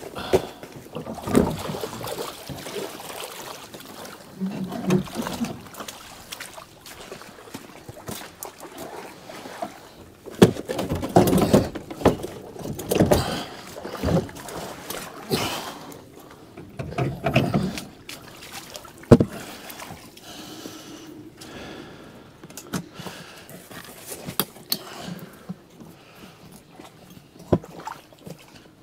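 Irregular splashing and sloshing from wading in shallow water, with scattered knocks and bumps as gear and a small outboard motor are handled at a small dinghy; one sharp knock stands out about two-thirds of the way through.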